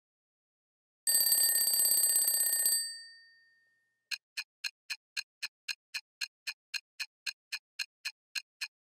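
Twin-bell alarm clock ringing for about a second and a half, starting about a second in, then dying away. Then a clock ticking steadily at about four ticks a second.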